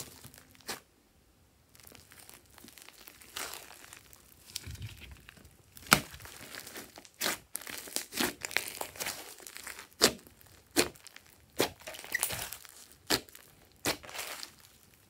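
Hands squeezing and stretching a large mass of glossy slime with small beads mixed in: soft squelching and crinkling, with sharp pops and clicks as trapped air is pressed out, coming about once a second in the second half.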